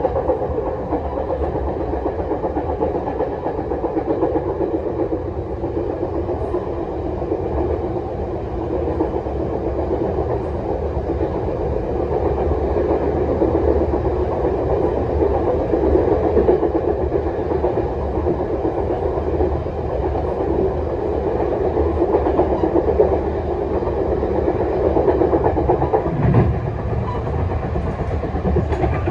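Passenger coach of a Chu-Kuang express train running on the rails, heard from the rear car: a steady wheel-on-rail rumble with clickety-clack. There is a short knock near the end.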